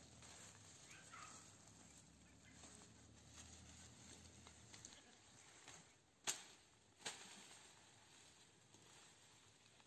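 Leaves being picked by hand from a leafy climbing vine: faint rustling, with two sharp snaps of stems breaking about six and seven seconds in.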